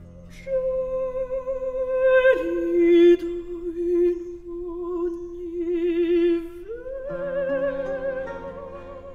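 Background music: a voice singing long, slow held notes with vibrato, dropping to a lower note about two seconds in and rising back up near seven seconds, over faint sustained accompaniment.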